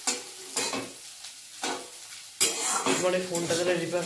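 Food sizzling in a pan while a spatula stirs and scrapes it, with several sharp scrapes and knocks and a louder clatter about two and a half seconds in.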